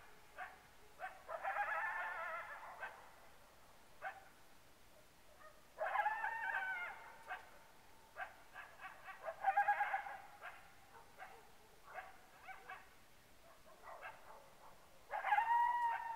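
Canine animal calls, which the uploader takes for a coyote or a dog: four long, high, wavering cries a few seconds apart, with short sharp yips between them.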